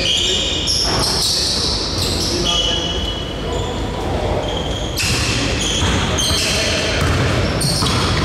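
Basketball game play in a gym: the ball bouncing on the court and sneakers squeaking in short high chirps, with players' voices, all echoing in the hall.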